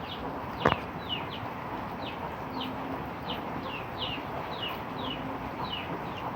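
Steady rain falling, with a small bird calling over it in short, falling chirps, about two a second. A single sharp click about a second in.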